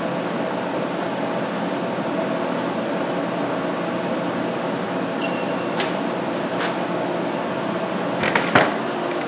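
Electric welding arc running steadily on the aluminum throwout-bearing stub of a manual transmission case, with a few sharp clicks about eight seconds in.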